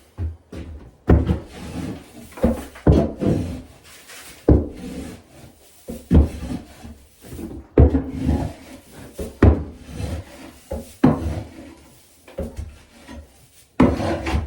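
Hand tool scraping chicken droppings and old bedding across the coop's wooden boards in repeated strokes, about one a second at an uneven pace.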